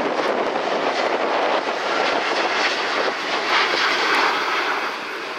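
Boeing 787-9 airliner's twin Rolls-Royce Trent 1000 turbofans at takeoff power as it climbs out just after departure: a loud, steady rushing jet noise that eases slightly near the end.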